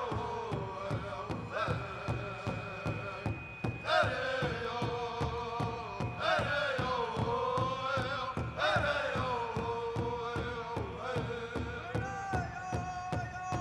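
Pow wow drum group singing a southern-style song: a steady beat on a large shared drum under several voices singing high phrases that start high and fall in pitch.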